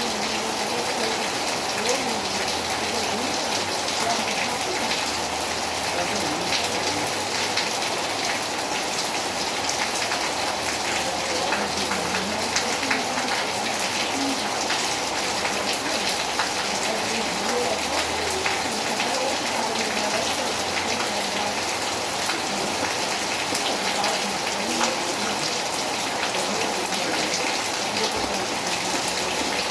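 Steady summer rain falling, a constant hiss with the patter of drops landing on surfaces.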